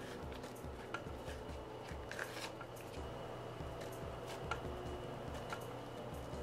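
Butter-texture slime being handled, giving scattered soft squishes and small clicks, over quiet background music with a steady low beat.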